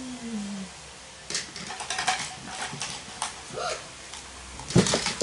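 Small plastic toys clattering and clicking against each other as they are picked through and sorted by hand from a pile on the floor, with a louder knock near the end.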